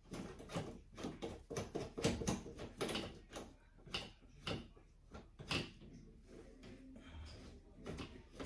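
Irregular metal clicks, knocks and clunks from the wheelchair trike's connector parts being handled and fitted, coming thick and fast for about six seconds, then fewer and lighter.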